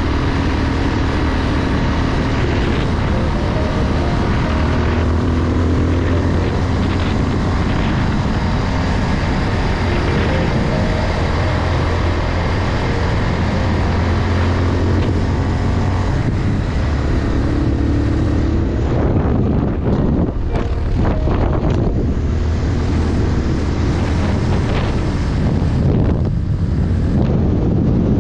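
Motorcycle engine running steadily at cruising speed along a road, with wind buffeting the microphone, gustier in the last third.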